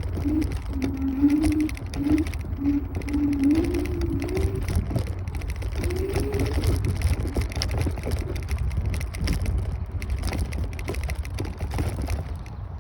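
Wind rumbling on the microphone and road noise from an electric scooter ride, with scattered rattles and clicks. A wavering mid-pitched tone comes and goes over the first half.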